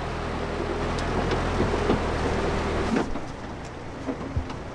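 4x4 jeep engine running with a steady low hum as it drives over rough, rocky ground, with a broad rushing noise and scattered knocks and clatters. About three seconds in the engine hum drops away, leaving a quieter rushing noise with a few knocks.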